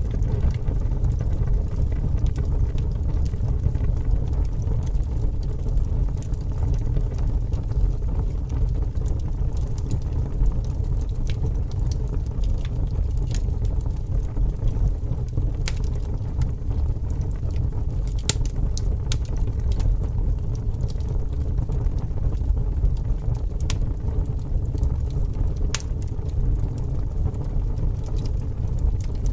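Bonfire burning, with scattered sharp crackles and pops, a few more in the second half, over a steady low rumble.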